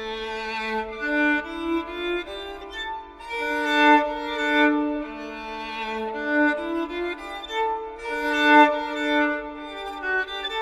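Film score of slow bowed violin music: long held notes, several sounding together and changing slowly, swelling about four and eight and a half seconds in.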